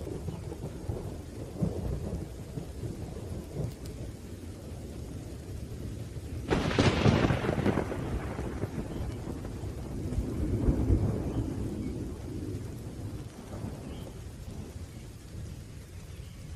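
Steady rain with rolling thunder. About six and a half seconds in a louder thunderclap breaks and fades over a couple of seconds, and a second rumble swells a few seconds later.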